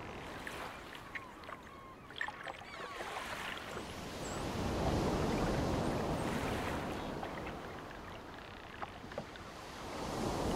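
Ocean water washing in slow swells, louder about halfway through and again near the end, with a few short dolphin whistles and clicks in the first few seconds.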